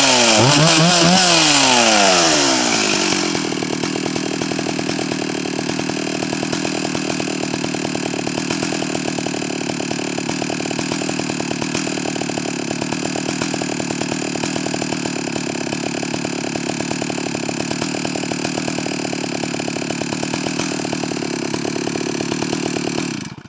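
Stihl 048 AV two-stroke chainsaw revved twice, the engine pitch rising and falling, then settling into a steady idle that cuts off suddenly near the end.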